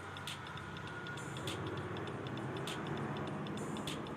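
Countdown clock-ticking sound effect: a steady fast ticking, with a louder click a little more than once a second.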